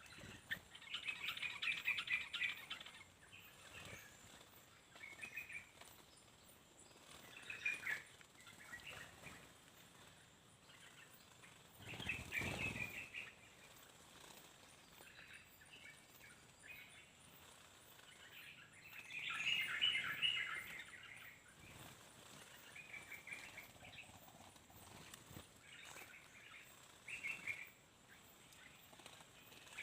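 Small birds chirping in repeated bursts of quick, high notes, loudest twice, with a brief rush of noise a little under halfway through.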